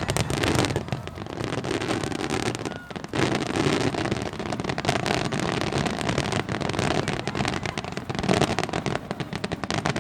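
Wide starmine fireworks barrage: many shells bursting in quick succession, a dense run of overlapping bangs and crackles with no pause.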